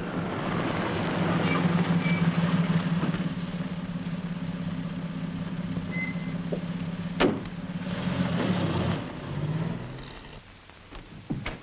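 A mid-1930s sedan's engine running steadily with a low hum and hiss, then fading away near the end. A car door shuts with a single sharp bang about seven seconds in.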